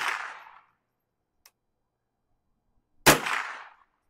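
Two shots from a scoped Ruger .22 rifle: the dying tail of one shot at the start, then a sharp crack about three seconds in. Each echoes out over about half a second, with a faint tick between them.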